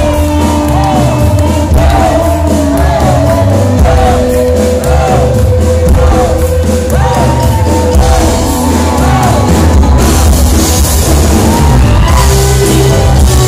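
Amplified rock music with voices singing into microphones, and the crowd shouting and whooping along.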